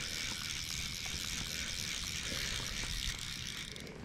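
Steady hiss of light rain falling on the lake and the angler's gear, easing off near the end.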